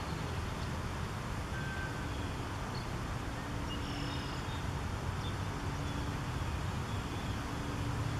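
Outdoor background: a steady low rumble of distant motor traffic, with a few faint, short bird chirps.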